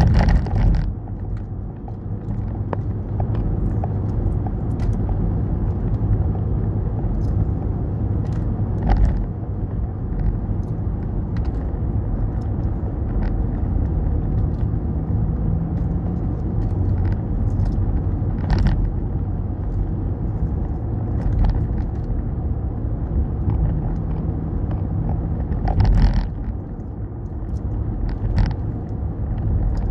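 Road noise inside a moving car: a steady low rumble of tyres and engine, with a few brief thumps, the loudest at the start and near the end.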